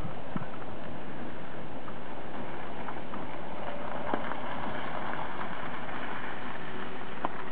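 Steady wind noise on the microphone, with a few faint clicks.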